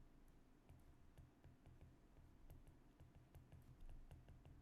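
Near silence with faint, irregular light clicks over a low background hum.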